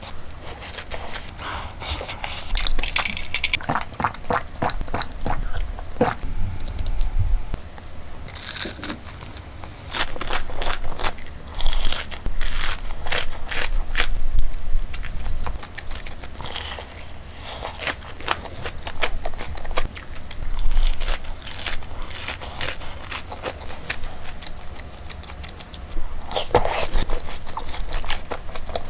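Loud crunching as crispy Cheetos-seasoned fried chicken and cheese balls are bitten into and chewed, in irregular bursts of crackles with quieter chewing between.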